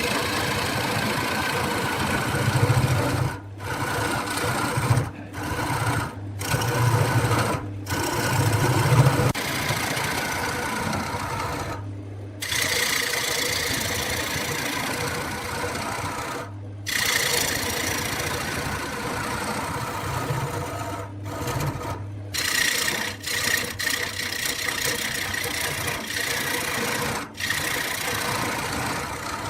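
Wood lathe running: a steady motor hum under the hiss of a tool cutting the spinning wood. The sound drops out abruptly several times.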